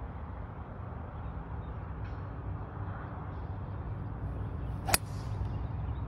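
A TaylorMade M4 driver striking a golf ball off the tee: one sharp crack about five seconds in, over a low steady background rumble.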